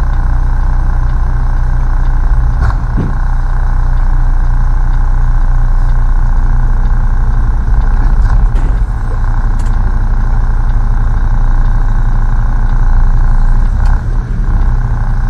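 Semi truck's diesel engine idling steadily with a deep, even rumble, with a couple of faint clicks, one about three seconds in and one near the end.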